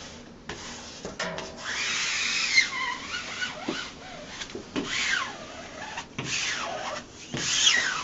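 A squeegee rubbing back and forth over a seam of self-adhesive fabric wallcovering, pressing it onto the wall: about six sliding strokes, each with a swooping rise and fall in pitch.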